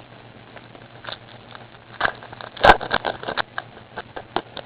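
Trading cards being handled and flipped through by hand: scattered soft clicks and scrapes of card stock, the sharpest about two and a half seconds in.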